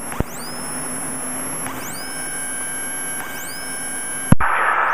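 Steady hiss with a few faint steady tones and thin rising whistles about every second and a half, heard through a light aircraft's radio and intercom between transmissions. The hiss jumps louder near the end.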